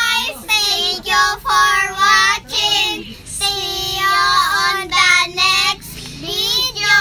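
Two young girls singing together in high voices, in short phrases with a longer held note about halfway through.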